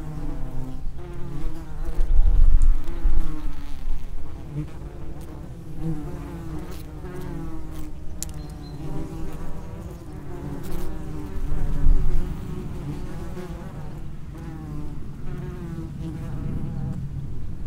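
Common wasps (Vespula vulgaris) buzzing as they fly in and out of an underground nest entrance, their wing hums overlapping and wavering in pitch. Two louder, low rumbles come a couple of seconds in and again about twelve seconds in.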